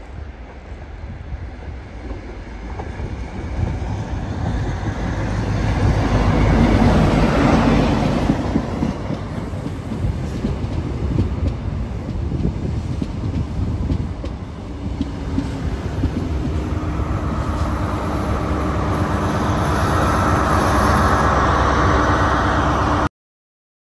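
Great Western Railway HST with Class 43 diesel power cars running along the platform. The leading power car's engine builds to its loudest about seven seconds in, then wheels clatter over the rail joints as the coaches pass. Near the end the rear power car's engine hums steadily, and the sound cuts off abruptly just before the end.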